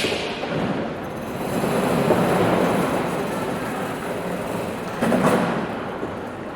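Airport departures hall ambience: a rolling rumble swells and fades over a few seconds, with a sharp click at the start and a short knock about five seconds in.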